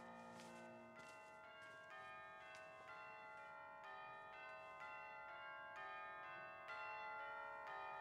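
Faint bells ringing in a slow, uneven peal: a new stroke about once a second, each tone ringing on long so that the strokes overlap.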